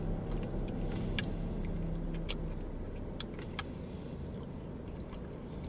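Steady low hum of an idling car, with a few scattered sharp clicks and smacks from chicken wings being eaten and sucked off the bone.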